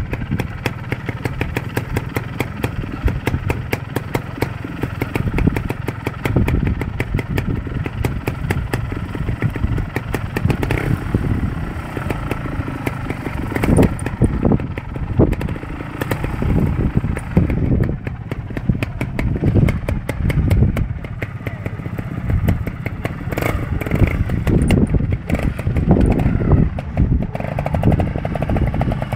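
Trials motorcycle engine running at low speed while being ridden over rocks, with repeated short bursts of throttle between quieter stretches.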